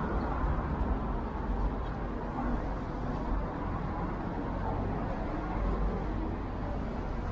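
Street ambience beside a busy road: a steady rumble of road traffic with people passing by.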